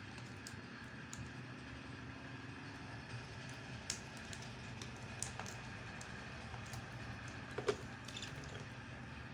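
Small plastic and metal parts of a Nokia 3110c being handled and fitted together by hand, with a few scattered faint clicks and taps, the sharpest near the end. A steady low hum runs underneath.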